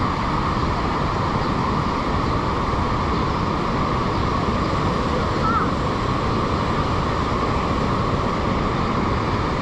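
Steady rushing of the Niagara River's whitewater rapids below the bridge, an even, unbroken wash of water noise.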